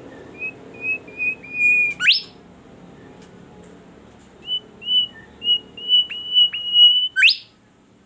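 Golden whistler (bimoli) singing two phrases of clear whistled notes. Each phrase builds in loudness and ends in a sharp, fast-rising whip note, the first about two seconds in and the second near the end.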